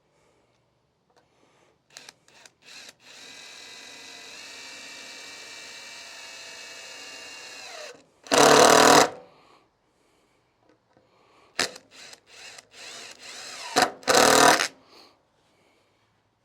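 Power drill driving screws into wood: the motor runs steadily for about five seconds, stepping up in pitch partway, then two loud bursts of noise about six seconds apart, with short spurts and clicks between them.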